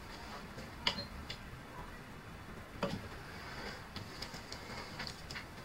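Faint small clicks and ticks of plastic test-lead crocodile clips being handled on cable cores: a sharp click about a second in, another near three seconds, and a few light ticks near the end.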